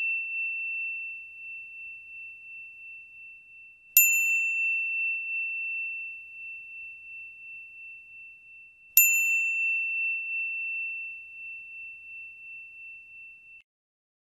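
Small hand bell rung with single strikes. A ring already sounding dies away, then the bell is struck again about four seconds in and again about nine seconds in, each clear high ring fading slowly with a wavering shimmer. The last ring cuts off suddenly near the end.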